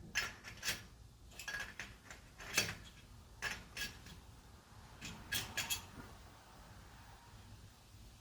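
Sharp metallic clinks and clicks of hand tools and small metal engine parts being handled and set down, about a dozen over the first six seconds, then quieter.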